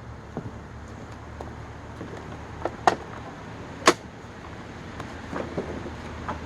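Scattered sharp plastic clicks and knocks as a Hoover SteamVac Widepath carpet cleaner is handled, the loudest about four seconds in, over a faint steady low hum.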